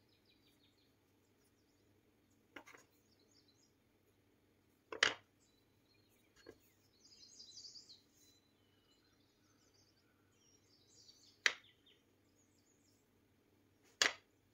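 Faint handling sounds of chebbakia dough being folded and pinched by hand on a bamboo cutting board: four sharp taps on the board, three of them louder, and a short scratchy rustle in between.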